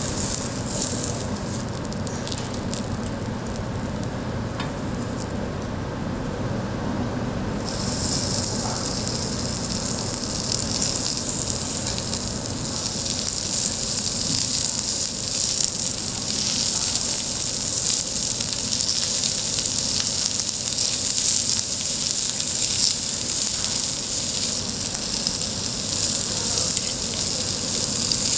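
Food sizzling on a hot cast-iron cauldron-lid grill, a steady frying hiss that turns louder and brighter about eight seconds in.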